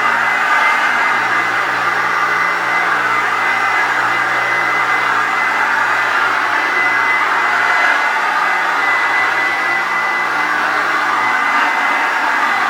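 1985 Hoover Turbopower Junior U1102 upright vacuum cleaner running steadily, mostly the rush of airflow through its freshly washed bag, with a thin steady whine over it.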